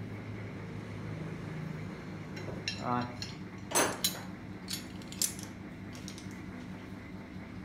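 Steel wrenches clinking against each other as they are handled and set down: a handful of short, sharp metallic clinks, one ringing briefly, over a steady low hum.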